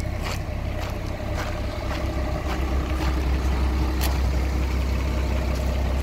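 Diesel engine of a 2002 Iveco ML90E truck idling as a steady low rumble, growing louder about halfway through as the front wheel and cab are neared, with a few footsteps crunching on gravel about a second apart.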